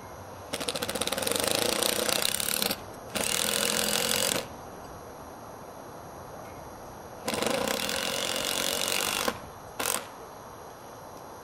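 Cordless power driver driving a long screw through a roof-mount flashing into the roof deck, in three long runs with short pauses between them and a brief final blip.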